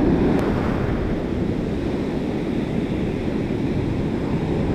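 Ocean surf breaking and washing up the sand around the feet, a steady rushing with wind buffeting the microphone.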